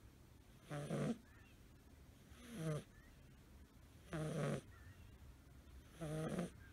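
A sleeping five-month-old American Shorthair kitten snoring: four short pitched snores about every second and a half to two seconds, in an even breathing rhythm.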